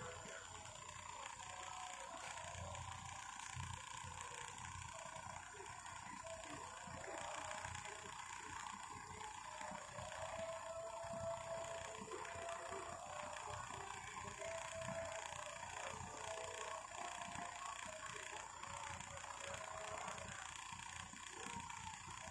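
Several small battery-powered toy fans running together: a steady whir of little motors and spinning plastic blades, with a thin whine that comes and goes.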